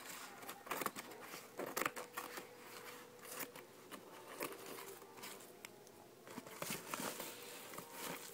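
Yellow padded mailer envelope being handled and pulled open: irregular crinkling and rustling of the paper and its bubble lining, with some tearing.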